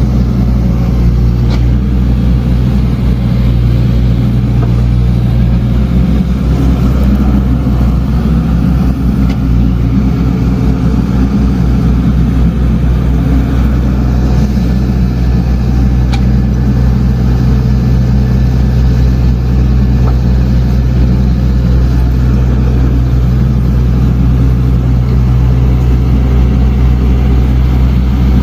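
Heavy earthmoving machine's diesel engine running steadily and loudly, with a deep, even hum and a couple of faint clicks.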